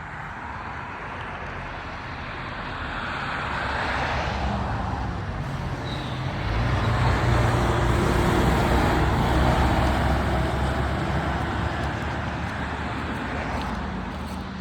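Road traffic passing on Route 501: one vehicle's tyre noise swells and fades about four seconds in, then a louder vehicle with a low engine rumble passes in the middle and gradually recedes.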